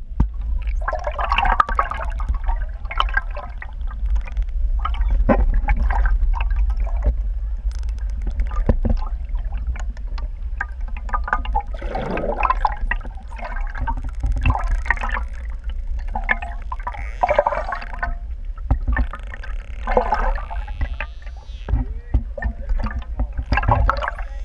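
Pantropical spotted dolphins heard underwater: rapid clicks and repeated buzzing, squeaky calls over a steady low rumble of moving water.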